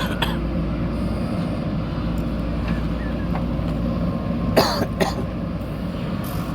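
JCB backhoe loader's diesel engine running steadily under work. Two short, sharp sounds stand out over it about four and a half and five seconds in, the first the louder.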